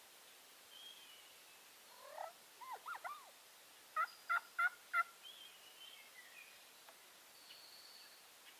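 Wild turkey calling: a quick run of curved notes about two seconds in, then four loud, evenly spaced notes about a second later. Faint songbird chirps can be heard at other moments.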